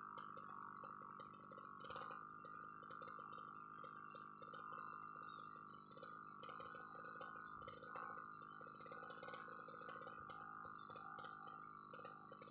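UMA UM328 brush cutter's two-stroke engine running steadily, heard faintly: a low hum with a steady higher tone above it.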